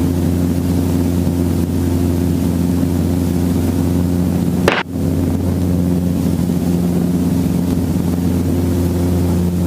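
Helicopter running on the ground with its rotor turning: a steady low drone with a hum of several steady tones, broken by a brief click and dip in loudness about five seconds in.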